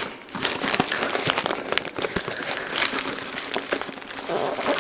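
Blue plastic packaging crinkling and crackling as hands pull and tear it open from around a cardboard box, the wrapping stuck down firmly with tape.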